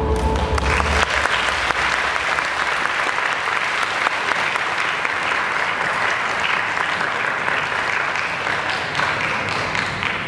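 A large audience applauding steadily, breaking into clapping as the dance music ends about a second in.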